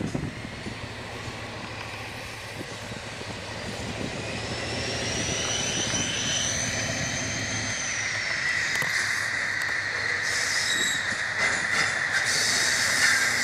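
Class 56 diesel locomotive's engine working under load as the train approaches, growing louder. A high whine rises and fades through the middle, and from about eight seconds wheels squeal steadily on the curved track, with a few clicks over the pointwork.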